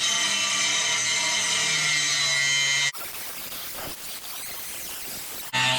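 A power tool working metal, a steady whine with a hiss, that cuts off abruptly about three seconds in to a quieter hiss and starts loud again near the end.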